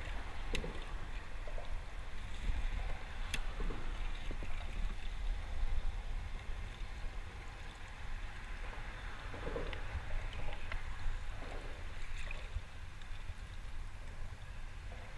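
Tidal current sloshing and swirling against a plastic kayak hull beside a concrete bridge piling, with wind rumbling on the microphone. A couple of light knocks come in the first few seconds.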